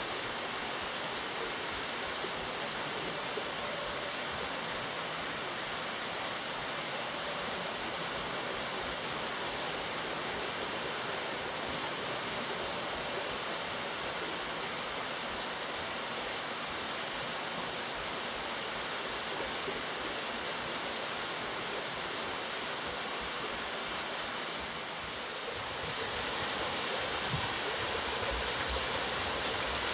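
Steady rush of water falling through a turning wooden water wheel and splashing into its channel. It gets louder and brighter about 26 seconds in.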